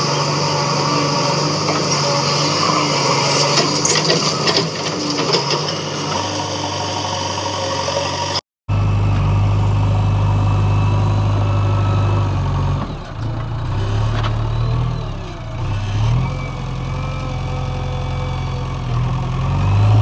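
JCB 3DX backhoe loader's diesel engine running steadily while it works soil with the front loader bucket. The sound breaks off for a moment about eight seconds in, and later the engine note dips and wavers a few times as the load changes.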